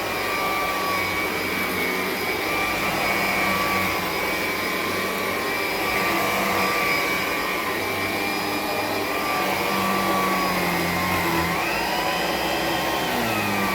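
A 1987–88 Electrolux Discovery 3 (model 1572E) upright vacuum cleaner running over carpet: a steady rush of air over a motor whine and low hum. About twelve seconds in, the whine briefly dips and then rises in pitch.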